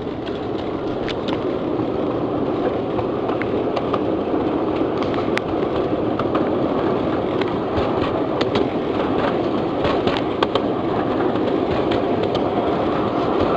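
A 1/8-scale ride-on miniature locomotive running along its track: a steady rolling rumble from the wheels and drive, with scattered sharp clicks and rattles all the way through.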